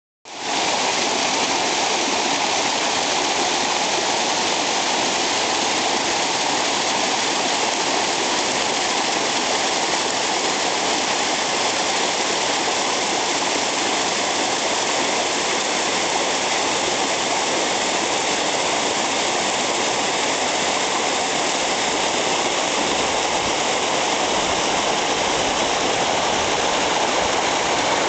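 Mountain stream cascading over rocks: a steady rushing of water.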